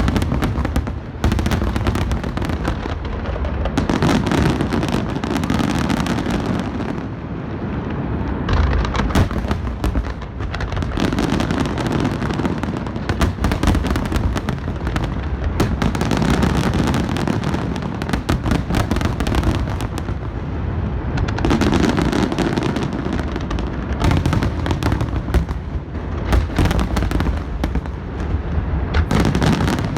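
Large aerial fireworks shells bursting in a dense, unbroken barrage: overlapping booms and crackling that swell in waves every few seconds, typical of a show's closing finale.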